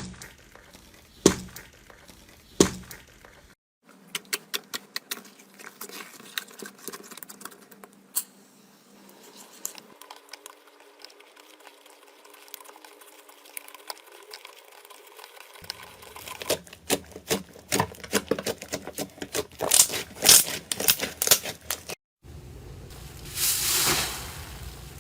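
Slime being handled and squeezed: a run of short crackling pops and clicks that grows denser and louder past the middle, broken by two brief cuts between clips.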